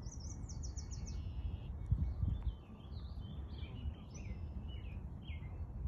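Small songbird singing: a quick trill of about six high notes near the start, then a run of varied chirps and swooping whistles. A steady low rumble runs underneath, swelling about two seconds in.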